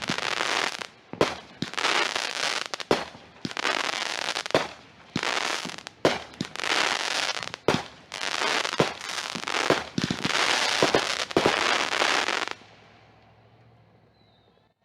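Consumer fireworks going off: stretches of dense crackling with sharp bangs in between. It all stops abruptly near the end.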